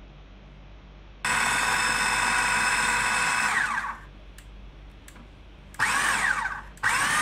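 Food processor motor pulsed three times while mincing a raw chicken and spice mixture: one run of about two and a half seconds, then two short bursts about a second each. Each run winds down with a falling whine as it stops, and a couple of light clicks come between runs.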